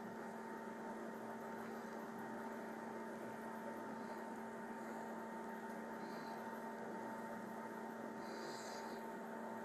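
A faint, steady electrical hum made of a few held tones, unchanging throughout.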